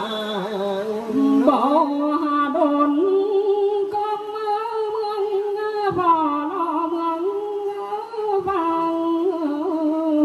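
A woman singing a Mường folk song unaccompanied into a microphone through a loudspeaker, in long held notes with slowly wavering, gliding pitch, pausing for breath twice.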